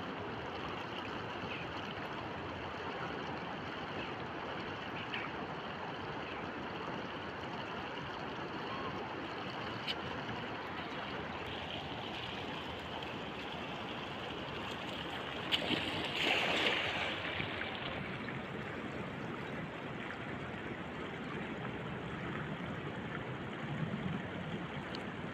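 Steady rushing of a shallow river flowing over stones, with a brief splash about fifteen seconds in as a cast net lands on the water.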